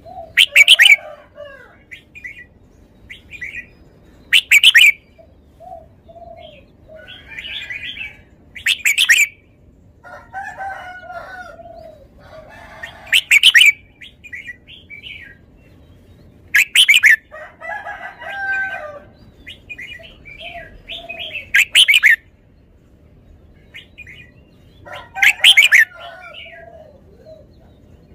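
Red-whiskered bulbul singing: seven loud short whistled phrases, about one every four seconds, with quieter warbling notes in between.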